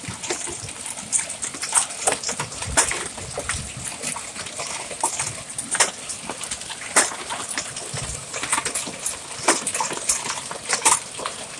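Large hailstones, estimated at 1.5 to 2 inches, pelting hard surfaces: a dense, irregular patter of sharp clacks, some much louder than others, over a steady hiss.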